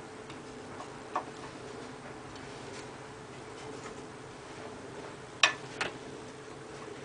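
Nylon cable tie being fastened around a wire bundle: a few faint ticks and a click, then two sharp clicks a third of a second apart about five and a half seconds in, over a faint steady hum.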